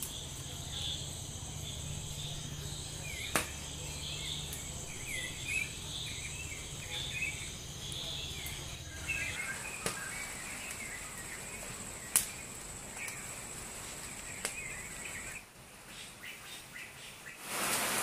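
Outdoor ambience: a steady high insect drone with birds chirping, and a few sharp pops from the wood fire under the spit-roasting chicken. Near the end a rush of rain comes in.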